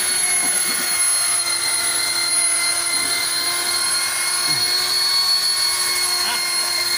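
Electric rotary car polisher running at a steady speed with a high motor whine, its pad buffing a car's painted panel.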